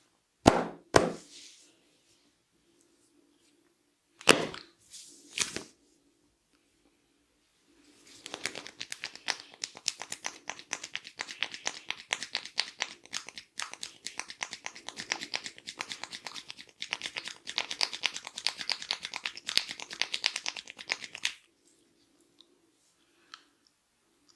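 Hair cracking during a head massage: two sharp snaps in the first second and two more around four to five and a half seconds in, then about thirteen seconds of rapid fine crackling from the hair that cuts off suddenly.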